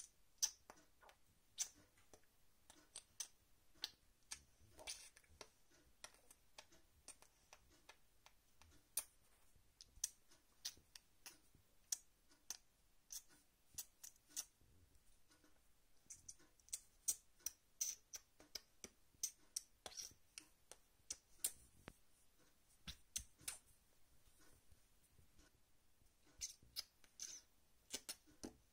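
Quiet, irregular sharp clicks and taps, often several a second and bunched in runs, over faint room tone.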